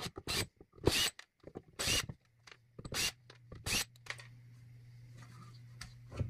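Cordless drill-driver run in about five short trigger bursts, backing screws out of a battery pack's circuit board.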